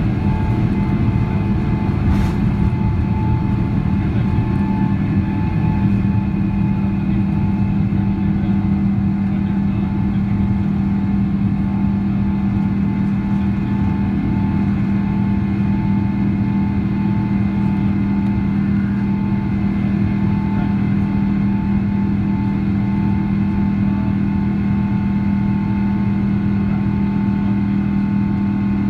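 Cabin noise of a Boeing 777-200's Pratt & Whitney PW4000 jet engines at takeoff thrust, heard from inside the cabin through the end of the takeoff roll and the first climb. It is a steady, loud drone with a strong low hum.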